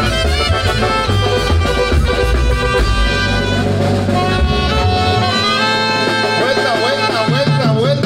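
Tamborazo band playing live: horns and woodwinds over the tambora drum. About five seconds in the low drum and bass drop out, leaving the horns playing sliding notes.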